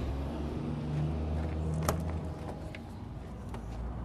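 A truck cab door latch clicks sharply about two seconds in as the door is opened, followed by a few lighter clicks. Under it runs a steady low engine hum.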